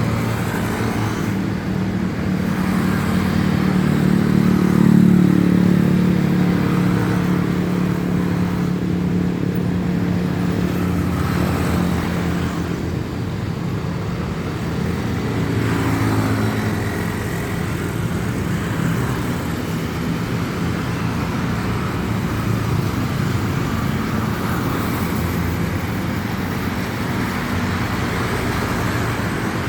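A motor vehicle engine running steadily, swelling louder about five seconds in, over continuous road-traffic noise.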